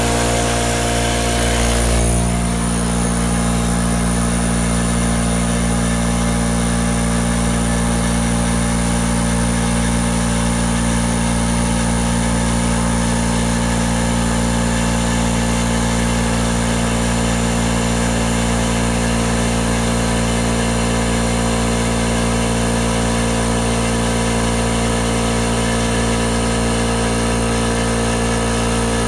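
Ingersoll Rand P1IU-A9 twin-stack portable air compressor, a 2 HP single-stage oil-lubricated unit, running steadily just after start-up as it pumps its empty tanks back up toward 135 PSI.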